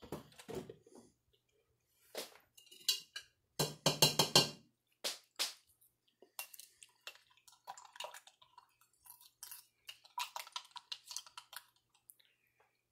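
Scattered clicks and knocks of tableware being handled, then a metal spoon tapping and clinking against the mug as it stirs instant coffee near the end.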